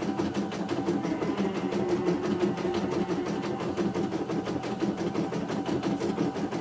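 CNY E900 computerised embroidery machine stitching a design: rapid, even needle strokes over a steady motor hum.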